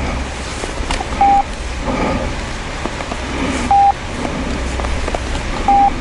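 Three short electronic beeps at one steady pitch, about two seconds apart, over a steady low rumble.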